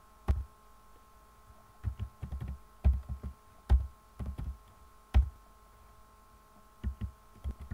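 Computer keyboard keystrokes: irregular taps, some single and some in quick clusters, as numbers are typed in.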